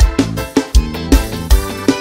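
Forró music, an instrumental passage with a steady beat.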